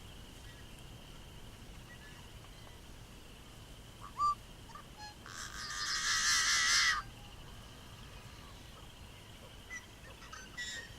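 Yellow-headed blackbird singing: a couple of short clipped notes about four seconds in, then a long harsh, wavering buzz lasting nearly two seconds, and a few short notes again near the end.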